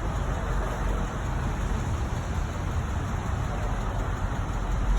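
Steady roadway traffic noise: a continuous rumble of cars on the street.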